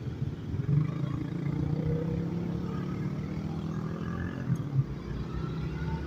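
Motorcycle engine running at steady low revs, with wind and road noise, as heard from a rider's on-board camera.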